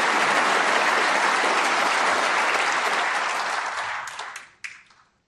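Snooker crowd applauding a shot. The applause thins out about four seconds in and ends with a few scattered claps.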